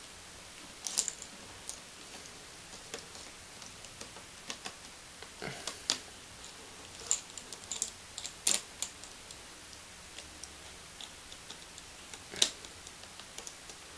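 Faint, scattered clicks and taps at irregular intervals from hands working on a laptop screen: a small Phillips screwdriver and plastic parts being handled.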